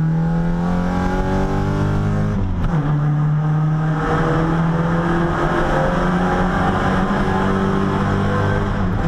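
Nissan 240SX's KA24DE 2.4-litre inline-four accelerating hard, heard from inside the cabin. Its pitch climbs, drops sharply at an upshift about two and a half seconds in, then climbs again more slowly in the next gear.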